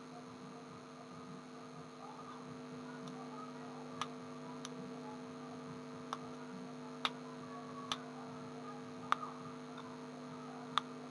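Steady electrical hum with several faint, sharp clicks scattered through it.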